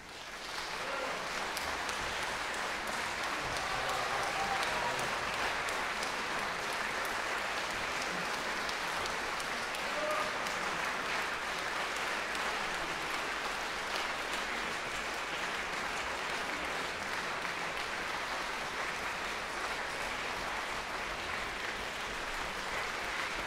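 Concert hall audience applauding. It swells to full strength within the first second and then holds steady.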